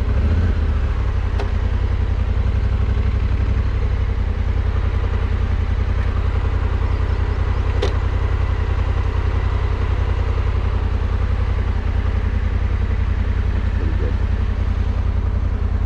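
Adventure motorcycle engine idling steadily with the bike stopped, an even low pulsing rumble, with a faint click about eight seconds in.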